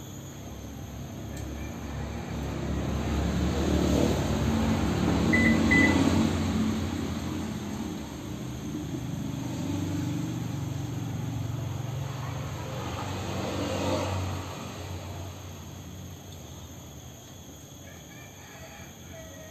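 A motor vehicle passes by: engine and road noise swell to a peak about six seconds in and fade. A second, quieter one passes around fourteen seconds in. Two short, high beeps sound near the first peak.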